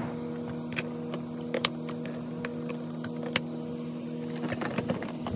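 Unboxing a plastic foam dart blaster: scattered sharp clicks and taps of plastic and packaging being handled, over a steady low hum.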